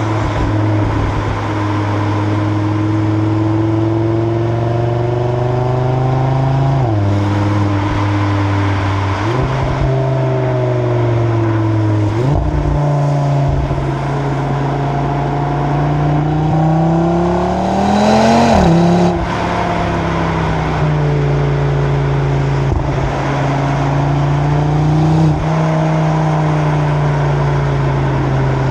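Audi RS3's turbocharged five-cylinder engine, through the stock exhaust, heard from the back of the car while cruising. The engine note steps down and up several times at gear changes, and a little past halfway the revs climb for a couple of seconds before dropping sharply with an upshift.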